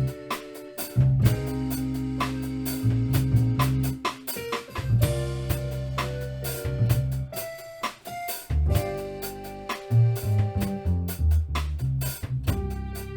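Instrumental music with drums, sustained bass notes and held higher tones, with no singing.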